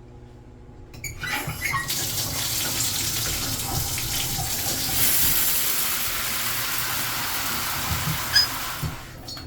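Water spraying from an old shower head, turned on about a second in and shut off near the end.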